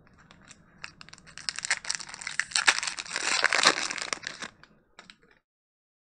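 Foil wrapper of a Pokémon booster pack crinkling and being torn open, the crackle building to its loudest a little past halfway and dying away about a second before the end.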